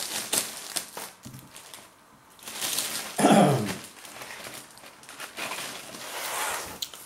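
Thin plastic snack bag crinkling and rustling as it is opened and a cracker is pulled out. About three seconds in there is a short, louder vocal sound that falls in pitch.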